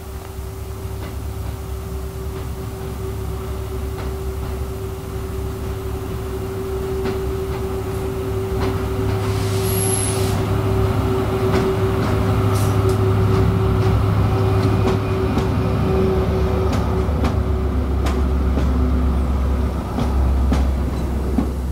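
A pair of Class 73/9 electro-diesel locomotives running on their MTU diesel engines as they haul a passenger train in. The engine note grows louder as the locomotives approach and pass, and the coaches then roll by.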